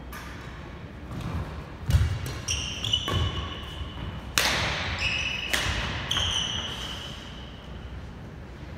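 Badminton rally on a wooden indoor court: about six sharp racket hits on the shuttlecock, roughly a second apart, mixed with short high squeaks of court shoes and thuds of footwork on the floor, ringing in the large hall.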